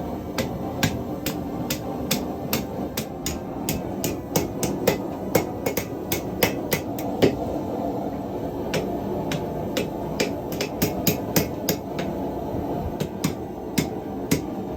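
Hand hammer striking metal on an anvil in a run of quick, uneven blows, about three a second, over a steady low hum.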